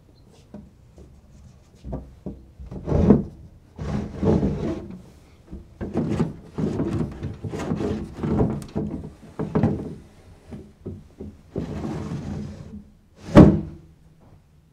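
A man clambering in through a wooden sash window: irregular bumps, knocks and scraping against the frame and sill, with a loud thud about three seconds in and a louder one just before the end.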